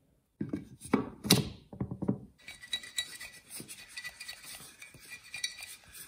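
Glass jar filled with wood shavings being handled: a few loud glass knocks and clinks starting about half a second in, then a dense scratchy rustle with small glass clinks as the jar is picked up and moved.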